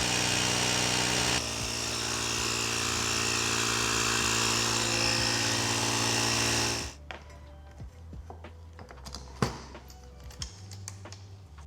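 Background music under a loud, steady noise that steps down a little after about a second and a half and cuts off suddenly about seven seconds in. After it, light clicks and knocks sound over the music.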